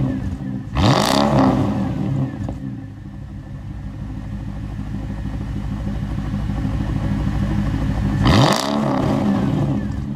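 Mercedes CLS 500 V8 revved while standing, heard from behind its exhaust: a quick blip about a second in that climbs sharply and drops back to a steady idle, then a second blip near the end.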